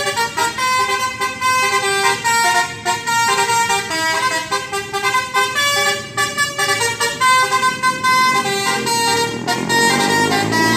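Telolet musical horn on a tourist bus, playing a quick melody of changing notes over and over. Near the end a lower sound rises in pitch underneath it.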